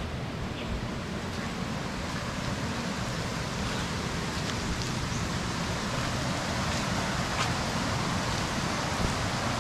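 River water rushing steadily over rocks, growing slightly louder, with a few faint ticks.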